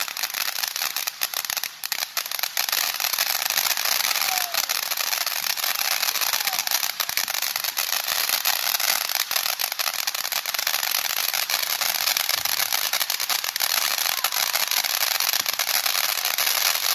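Ground fountain firework spraying sparks: a continuous hissing crackle made of a dense run of tiny pops, going on without a break.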